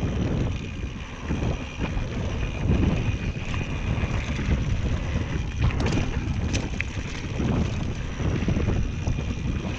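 Wind buffeting the camera microphone and tyres rumbling over the dirt as a mountain bike rides singletrack, with a couple of sharp clicks or rattles about six seconds in.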